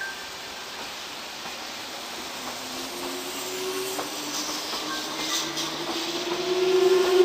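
A train approaching along the line, its noise building steadily louder, with a whine that slowly rises in pitch.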